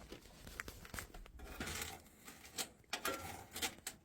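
Hands working on PC hardware: scattered light clicks, taps and rattles of metal and plastic parts being handled.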